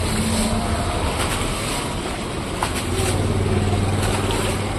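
Floodwater being scooped and flung out of a doorway with a plastic dustpan, splashing a few times in quick succession, over the steady hum of a motor vehicle engine that grows louder about three seconds in.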